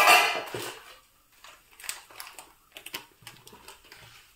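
A sharp clatter of a steel spoon and cumin seeds against a dry iron pan, then light, irregular crackling ticks as coriander and cumin seeds roast in the hot pan.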